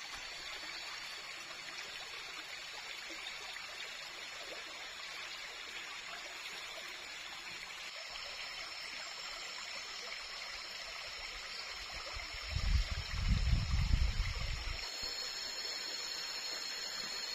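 A stream flowing steadily, with thin high-pitched tones joining about halfway in. A low rumble lasting about two seconds near the end is the loudest sound.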